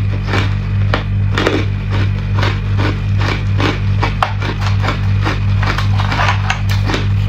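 Hard clear ice cubes crunched and cracked between the teeth, a quick run of sharp crunches several times a second, over a steady low electrical hum.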